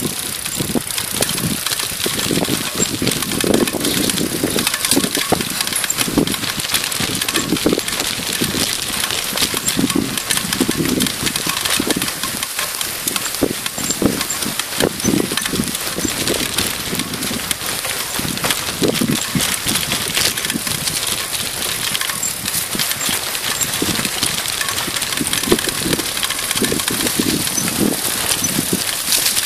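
Mountain bike rolling over a dirt and gravel trail, heard through a camera mounted on its handlebar: steady tyre and trail noise with a constant clatter of small knocks and rattles.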